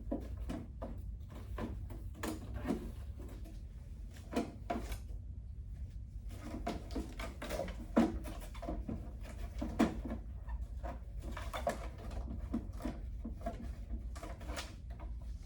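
Irregular clicks, knocks and rustling from hands wet-wiping and handling the inside of a HEPA vacuum's housing, over a low steady hum.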